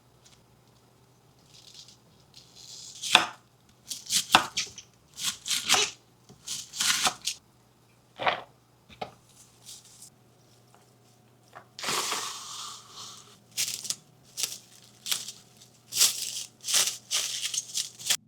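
Knife cutting through a head of cabbage on a cutting board: irregular, crisp chops with crunchy leaf rustle, and a longer crunching, tearing stretch about two-thirds of the way through.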